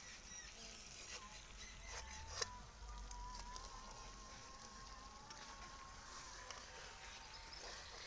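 Rohu fish pieces sizzling faintly in masala in a pan, with small crackles and one sharp click about two and a half seconds in. A thin, steady high tone comes in about two seconds in and holds.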